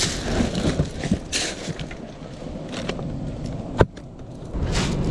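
A cooler box being handled on a pebble beach: scattered crunching and scraping of stones over a steady wind and surf hiss, with one sharp click about four seconds in.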